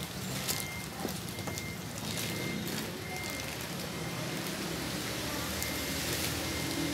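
Plastic wrapping crinkling and rustling in short, scattered crackles as a laptop is unwrapped from its plastic bag, over a steady low background rumble.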